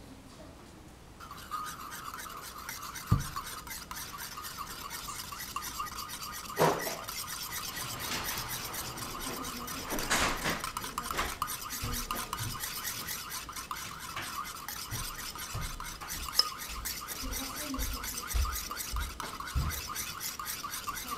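Wire whisk beating mayonnaise in a bowl: rapid, steady scraping strokes of the wires against the bowl as egg and oil are whipped into a thick emulsion. The whisking starts about a second in, with a couple of louder knocks early on.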